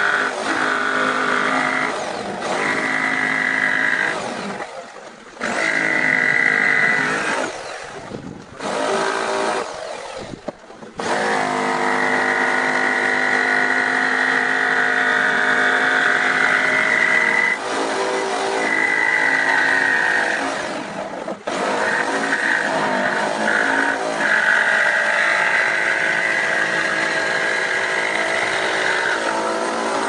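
Electric woodworking power tool running and cutting wood, a steady high motor whine that stops briefly and starts again a few times.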